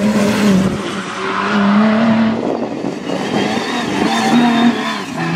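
Mitsubishi L200 rally pickup driven hard on a dirt stage: the engine note holds steady, rising and dipping a few times, over the hiss of tyres sliding and throwing up dirt and gravel.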